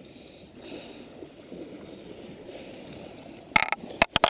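Low, steady wash of small waves on a beach, with a quick cluster of sharp clicks about three and a half seconds in and a few more sharp clicks near the end.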